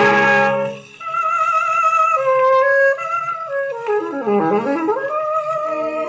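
Jazz orchestra music played from a 78 rpm shellac record on a record player. A full band chord ends about a second in, then a solo melody with a wavering pitch, swooping down and back up about two-thirds of the way through.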